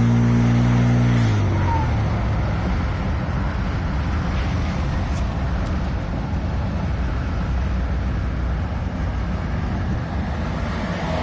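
Ford F-150 engine held at raised revs, then dropping back about a second in as the throttle closes, with a brief hiss and a short falling chirp from the blow-off valve. It then settles to a steady idle rumble. The blow-off valve noise is the odd noise in question.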